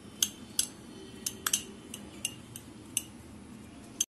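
Metal spoon clinking and tapping against a small glass tumbler while stirring desiccated coconut and condensed milk into a stiff mixture: about ten irregular, sharp clinks.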